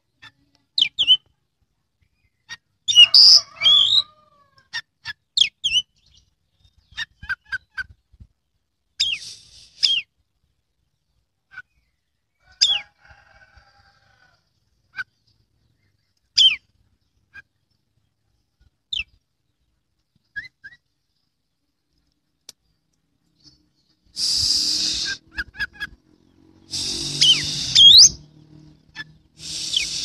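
Oriental magpie-robin (kacer) singing in short, sharp whistled phrases and chirps, some gliding in pitch, with pauses between them. Near the end come two louder, harsh noisy bursts of about a second and a half each.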